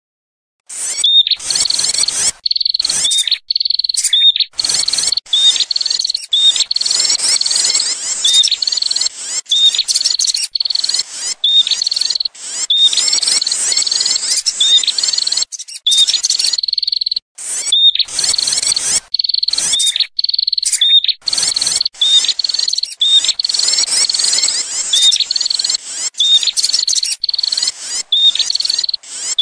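Prenjak (prinia) lure call: rapid, high-pitched chirping and chattering, repeated over and over and broken by brief abrupt gaps.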